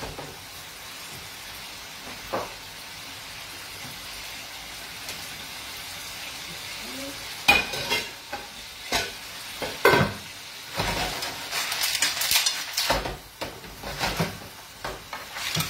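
Gnocchi with clams and porcini sizzling steadily in a frying pan. About halfway through come a few sharp clanks as a metal lid goes onto the pot beside it, then stirring and scraping in the pan.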